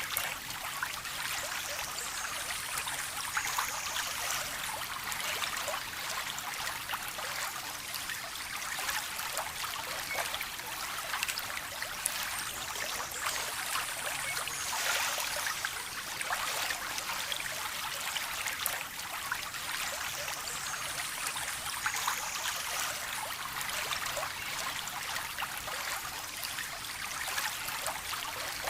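A small stream of water trickling and splashing steadily, with many small splashes.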